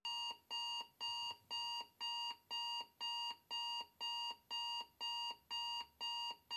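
Electronic alarm clock beeping, a steady run of short high-pitched beeps at about two a second.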